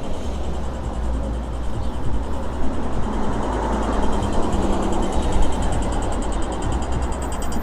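Street ambience with motor traffic running past: a steady low rumble and noise of vehicles on the road.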